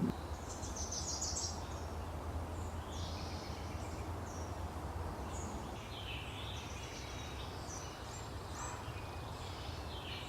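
Woodland ambience: several birds calling and singing in short scattered phrases over a steady low rumble.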